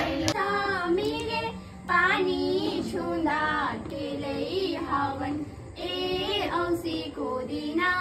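Young girls singing a song together, phrase after phrase with short breaks between lines.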